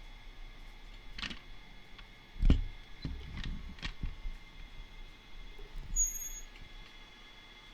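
Small handling sounds: a few sharp clicks and one louder thump about two and a half seconds in, over a faint steady high electronic whine.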